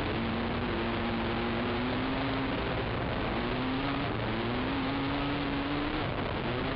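Racing ATV engine under way, its pitch rising in several surges and dropping back between them as the quad accelerates along the trail. A dense rushing noise of wind and ground runs underneath it.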